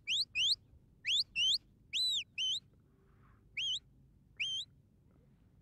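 A sheepdog handler's shepherd's whistle giving commands to working dogs: a quick run of short, sharp rising whistle notes, then a longer note that rises and falls about two seconds in, and two more rising notes with a little step in pitch near the end.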